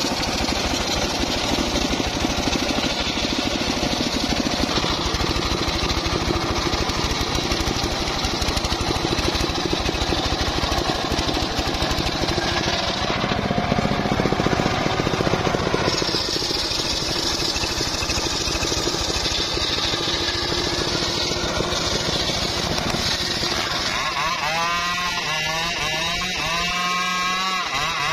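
Homemade engine-driven circular sawmill running continuously, its blade ripping through teak logs over the engine's steady pulsing. The cutting sound changes partway through, and a wavering whine comes in near the end.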